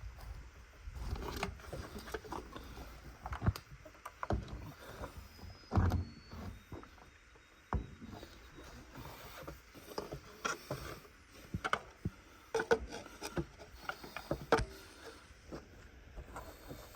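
Irregular clicks, clinks and knocks of hand work on a Timberjack skidder: metal parts and tools being handled and set down, with a few heavier thumps.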